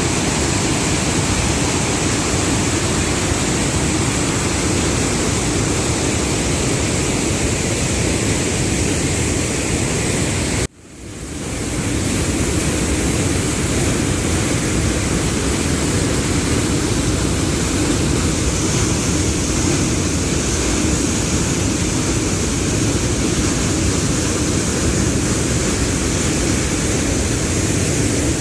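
Waterfall: a steady, loud rush of falling water. About eleven seconds in it cuts out abruptly and swells back within about a second.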